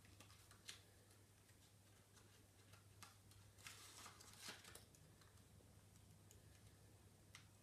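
Near silence: room tone with a steady low hum and a few faint clicks and rustles of small objects being handled.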